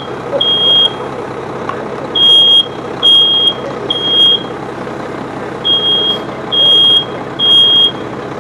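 Smoke alarm sounding its temporal-three evacuation pattern: loud, high-pitched beeps about half a second long, in groups of three with a pause between groups. It has been set off by smoke from a fire burning in a room.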